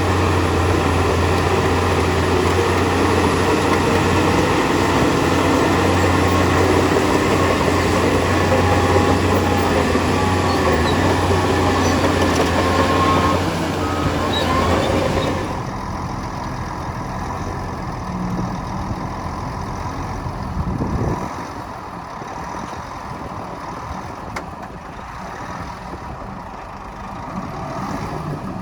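Heavy diesel earthmoving machinery running: a loud, steady engine with a strong low hum, dropping abruptly about halfway through to a quieter engine running.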